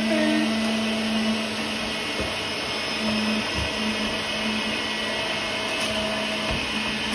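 Electric centrifugal juicer running steadily, its motor giving a constant hum over a whirring noise as produce is fed through it.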